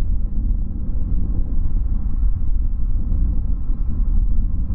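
Boeing 787-9 jet engines at idle as the airliner taxis, heard as a steady low rumble.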